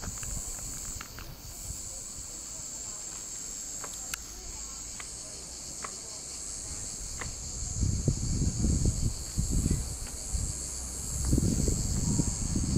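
Cicadas chirring in a steady high drone. From about two-thirds of the way in, wind buffets the microphone in low gusts.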